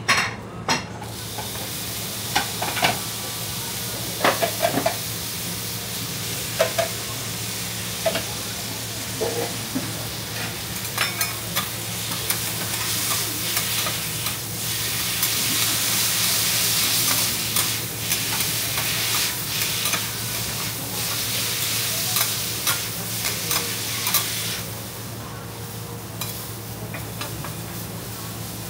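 Yakisoba noodles sizzling on a flat-top steel teppan griddle, with metal spatulas clacking and scraping against the steel as the noodles are turned and pressed. The sizzle comes in right at the start, grows louder through the middle and eases near the end.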